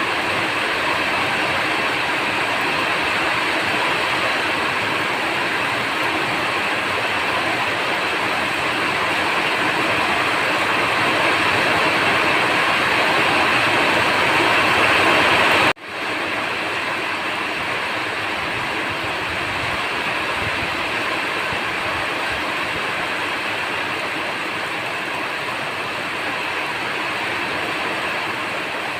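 Steady rain falling, an even dense hiss of raindrops. About halfway through it cuts out for an instant and resumes a little quieter.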